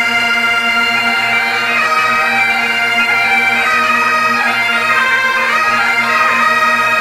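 Military bagpipes playing a Garhwali mangal geet folk melody over a steady, unbroken drone.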